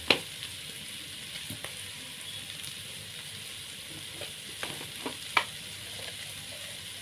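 Cut intestines stir-frying in a pan with a steady sizzle, and a spatula knocking against the pan a few times, sharply just after the start and about five seconds in.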